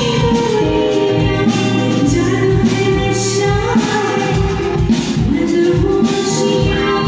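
A woman singing lead into a microphone with a live band, over a steady drum beat about twice a second.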